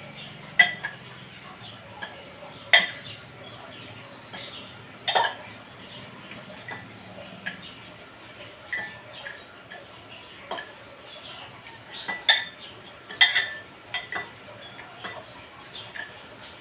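Metal fork clinking and scraping against a bowl while mixing instant pancit canton noodles, in a dozen or so irregular sharp clicks.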